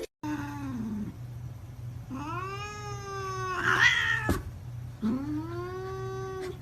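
Cat yowling: a short falling call, then two long, drawn-out yowls, the first rising and then holding its pitch.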